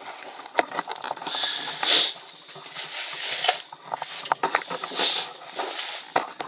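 Handling noise as things are set out to demonstrate: short rustling swishes and a scatter of sharp clicks and taps.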